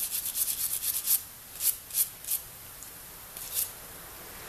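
Stiff brush scrubbing grit and packed-in shavings out of a three-jaw lathe chuck: a fast run of scratchy strokes for about the first second, then about five separate, slower strokes.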